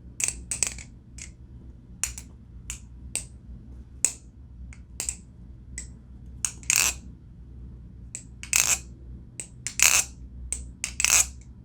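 Balisong (butterfly knife) being flipped: an irregular run of sharp clicks and clacks as the handles swing and knock together, with a few longer rattles among them. The handles wear rubbery, tungsten-weighted caps, which slightly change the sound profile.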